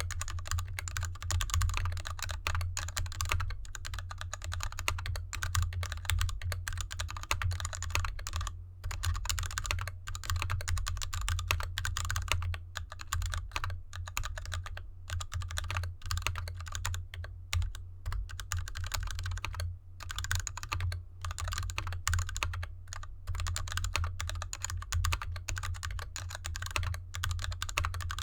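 Steady fast typing on a GK64X mechanical keyboard in an anodized aluminium case, with lubed linear Gateron Red switches and DSA keycaps: a dense run of keystroke clacks with brief pauses about a third of the way in and again past the middle. The keyboard sits on a desk mat over felt fabric.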